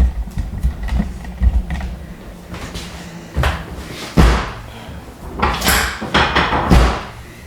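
Dull thumps and rustling as a patient is shifted and pressed on a chiropractic treatment table, with the loudest thuds about four seconds in and near the end.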